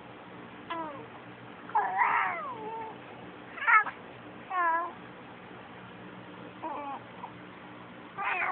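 Three-month-old baby cooing: about six short, high vocal sounds with sliding pitch, the loudest about two seconds and three and a half seconds in.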